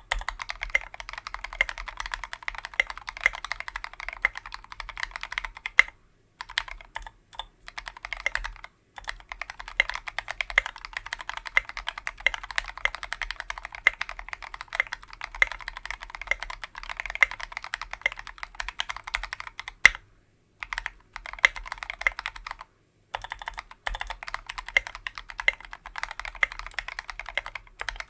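Fast typing on a KBDfans Tofu 60% mechanical keyboard with lubed Tealios V2 linear switches on a brass plate and SA-profile keycaps: a dense run of keystroke clacks, stopping briefly about four times.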